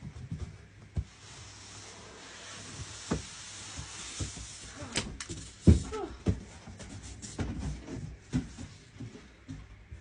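A boxed PC case being unpacked: packaging rustling and scraping, with a string of handling knocks, the loudest a little over halfway through.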